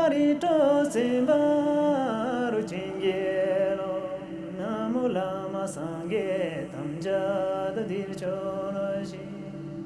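Music: a single voice sings a slow, chant-like melody with long held notes over a steady drone.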